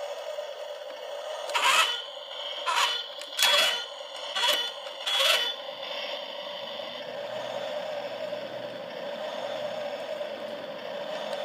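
A toy RC excavator's electronic horn sound sounding five short, harsh honks through its small speaker, over a steady hum.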